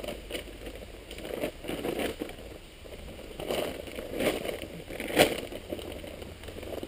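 Rustling and knocking of camping gear being handled and loaded into a car boot, with a sharp knock about five seconds in.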